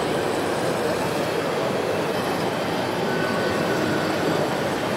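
Steady rumbling din of a busy exhibition hall, with no single sound standing out.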